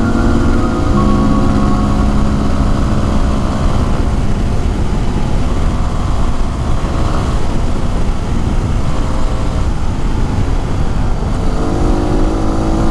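Yamaha WR250R's single-cylinder engine running as the motorcycle is ridden along, under heavy wind noise on the microphone. The engine's steady note is clear in the first second or so, sinks under the wind noise through the middle, and comes back near the end.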